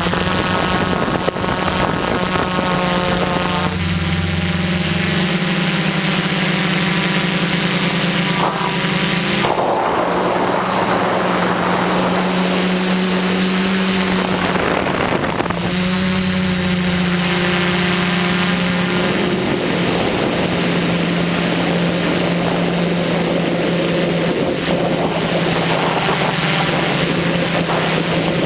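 Quadcopter's electric motors and propellers humming steadily, heard from the camera on the drone itself. The hum shifts in pitch now and then as the drone manoeuvres, and a rushing noise rises over it for several seconds in the middle.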